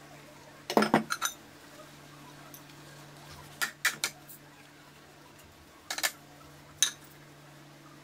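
Ceramic bowls, plates and spoons clinking and knocking together as they are hand-washed and stacked in a sink. The clinks come in short clusters about a second in, around four seconds in, and near six and seven seconds, over a low steady hum.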